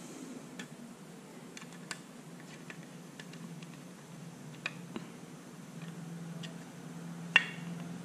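Light scattered clicks and ticks of a small screwdriver and screw working in a clear plastic helmet visor as a tear-off post is screwed on, with one sharper click near the end. A low steady hum runs underneath.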